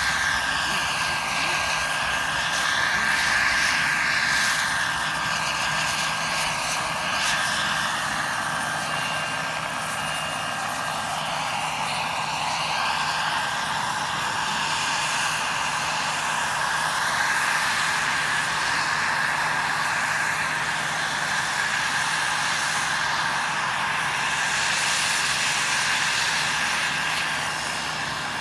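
Radio-controlled scale model of a BK 117 helicopter in flight, its motor and rotors giving a steady high whine over a rushing rotor noise. The sound colours and swells slightly as the model moves about.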